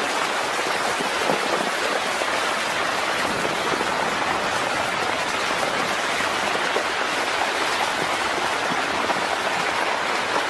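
Muddy flash-flood water sheeting across a paved road: a steady rushing hiss.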